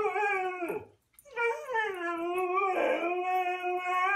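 Siberian husky howling. One howl trails off under a second in; after a short break a long, steady howl begins, roughens briefly in the middle, and carries on past the end.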